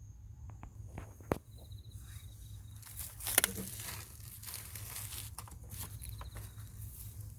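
Footsteps and rustling, with a sharp click just over a second in and a louder scuff about three seconds in, over a steady low rumble.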